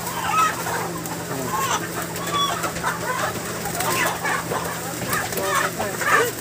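A crowd of broiler chickens squawking and clucking as they are caught and carried by the legs, many short calls overlapping, over a steady low hum.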